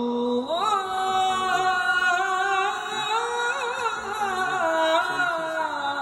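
A solo male voice chants the sala, the Turkish Islamic call recited to announce a death, into a microphone. It is one long held line that swoops up about half a second in, winds through ornamented turns, and sinks lower near the end.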